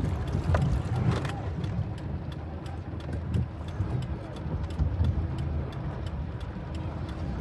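Car interior while driving slowly through flood water: a steady low rumble from the engine and road, with a regular light ticking over it.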